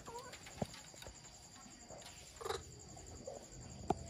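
Scattered light taps and scrabbles of a baby monkey climbing on the wire mesh and wooden frame of its enclosure, with a brief louder scrape about two and a half seconds in.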